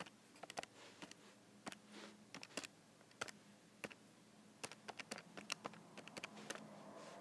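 Faint, irregular clicking of keys being pressed on a calculator, single taps and short quick runs with pauses between them, as the sum is keyed in.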